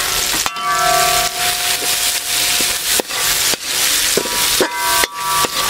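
Onions, green chillies and garlic sizzling in hot oil in a metal wok while a metal spatula scrapes and knocks against the pan, which rings briefly after several strikes.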